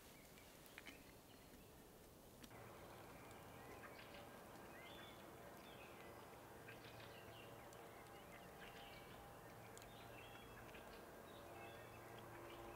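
Near silence: faint woodland ambience with scattered small-bird chirps from about two and a half seconds in, over a faint steady hum. A few light clicks come in the first second.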